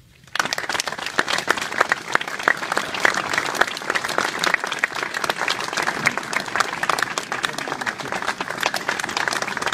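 Audience applauding: many hands clapping, starting about half a second in and continuing steadily.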